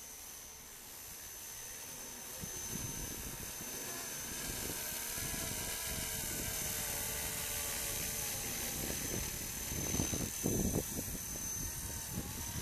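FlishRC 500-size Bell 222 Airwolf RC helicopter in flight: a steady rotor and motor whine, its pitch wavering slightly, growing louder about two seconds in. Wind buffets the microphone with low rumbles near the end.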